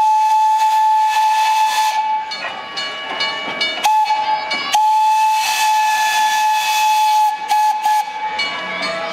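Steam locomotive whistle blowing one steady note: a long blast, a short blast, another long blast, then three quick toots near the end, with steam hissing between the blasts.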